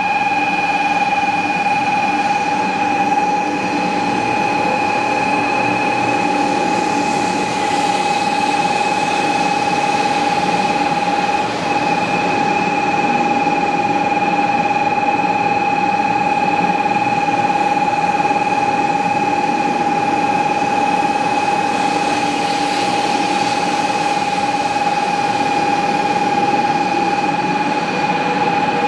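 500 Series Shinkansen train pulling slowly into the station along the platform, with a rushing rolling noise. A loud, steady, high-pitched electronic tone of unchanging pitch lies over it.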